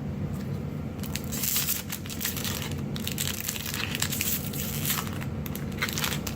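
Crinkling and tearing of a foil Magic: The Gathering booster pack wrapper being handled, from about a second in with a brief pause midway, over a steady low background hum.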